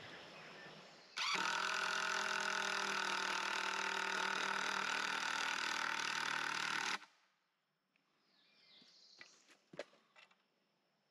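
Cordless drill driving a screw through a wooden brace board: the motor runs steadily for about six seconds, starting about a second in and stopping abruptly. A few faint knocks and rustles follow.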